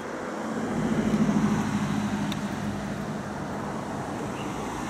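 City road traffic, with one vehicle's engine hum swelling as it passes close about a second in, then fading back into the steady traffic noise.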